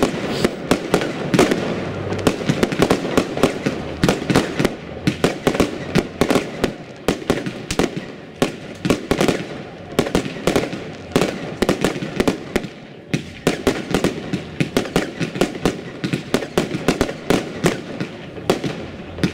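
Fireworks bursting in quick succession: a dense, irregular string of sharp bangs and pops that never lets up.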